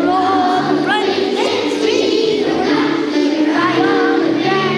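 A children's choir of second graders singing a patriotic song together.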